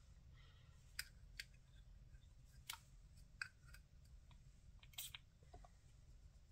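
Faint clicks and taps of a mini Bath & Body Works fragrance mist bottle being handled, with one short spritz onto the wrist about five seconds in.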